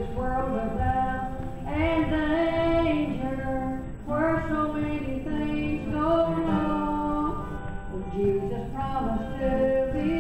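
A woman singing solo, holding long notes that slide from one pitch to the next.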